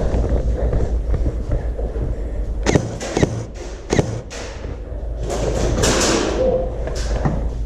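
Several sharp knocks and thumps, four standing out, over a steady low rumble, with a short hiss in between.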